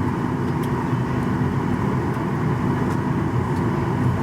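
Steady cabin noise inside a Boeing 737-800: a low, even rumble and hiss from the running engines and cabin air, with a faint steady hum.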